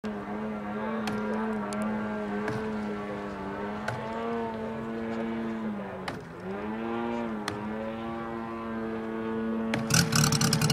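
A 250 cc five-cylinder Moki radial engine on a large model biplane running at a steady idle. Its pitch sags about six seconds in and picks back up, and near the end it grows much louder and rougher.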